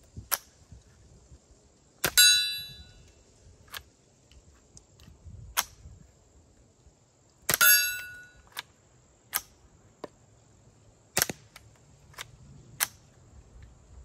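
Winchester Wildcat .22LR rifle with a suppressor firing CCI Quiet rounds: a series of faint, quiet pops and clicks. The ammunition is too weak to cycle the action. Twice, about 2 and 7.5 seconds in, a loud sharp hit rings on for about a second, like a bullet striking a steel target.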